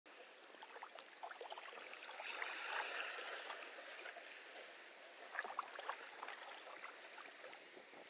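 Small, calm sea waves washing on a sandy beach, a faint hiss with a fine crackle of water over sand, swelling a little a couple of seconds in.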